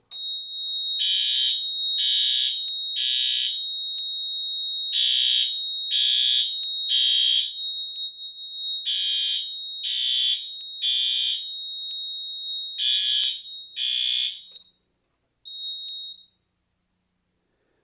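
Fire alarm horns sounding the temporal-three evacuation pattern, three blasts about a second apart and repeating every four seconds, over a steady high-pitched tone, with the system running on battery backup. The sounding stops about fifteen seconds in, two blasts into the fourth round, and the steady tone comes back briefly near the end.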